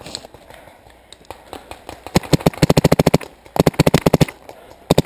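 Paintball marker firing rapid bursts at about ten shots a second, starting about two seconds in, with brief breaks between bursts; a few scattered shots are heard before the first burst.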